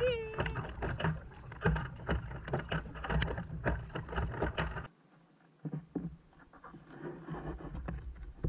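Kayak paddle strokes splashing and water slapping around the hull, close to the microphone, in quick irregular splashes. They cut off suddenly about five seconds in, and fainter splashes and knocks follow.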